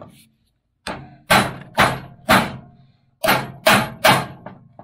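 Ball-peen hammer striking a socket used as a seal driver, tapping a new oil seal into the bore of a snowmobile chain case casting. There are about eight sharp blows in two runs of four, roughly half a second apart.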